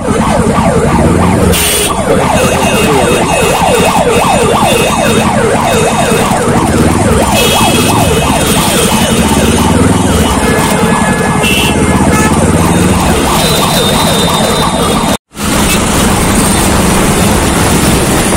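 A siren yelping, its pitch sweeping quickly up and down over and over, above motorcycle engine and traffic noise. It stops abruptly about fifteen seconds in, and only motorcycle and road noise is left.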